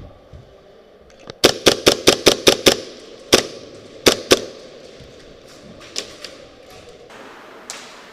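Airsoft guns firing. A quick string of about seven sharp shots comes about a second and a half in, then a few single shots, then fainter shots near the end.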